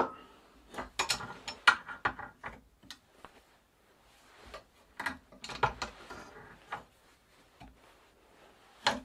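Steel pipe wrench turning an oiled bicycle bottom-bracket cone on its spindle held in a vise, giving bunches of sharp metallic clicks and creaks as the jaws bite and shift on the cone: once about a second in, again around five seconds, and near the end.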